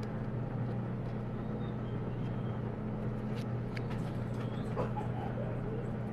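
A steady low hum, with a few faint clicks of game cards being handled and shuffled in the hands.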